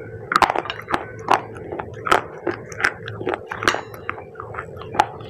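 A person chewing wet clay chips, with irregular crisp crunches a few times a second.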